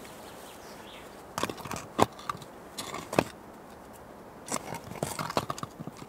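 Stones knocking and scraping against each other as they are lifted and set into a fire pit ring, with crunching of moss and soil: a few separate knocks, then a busier run of them near the end.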